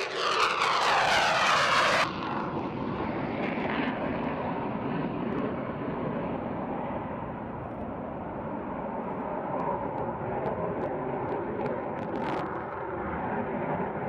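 F/A-18 fighter jet's engines: a loud close pass with a sweeping hiss for about the first two seconds, which breaks off suddenly, then steady, more distant jet noise as the aircraft banks overhead.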